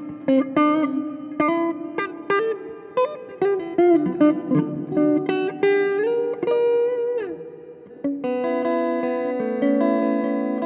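Epiphone Les Paul Classic Worn electric guitar played with a clean tone: a run of picked single notes with string bends and a slide down, then chords struck about eight seconds in and left ringing.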